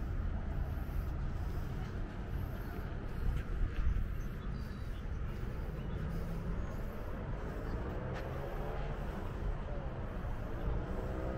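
Outdoor background noise: a steady low rumble. From about halfway through, a pitched hum rises in pitch again and again.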